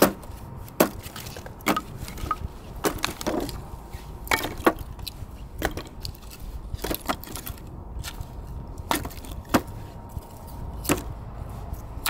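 Firewood and kindling cracking and snapping: about fifteen sharp wooden cracks at irregular intervals.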